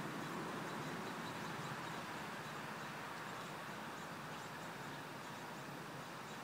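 Steady outdoor background noise: an even hiss with no distinct event standing out.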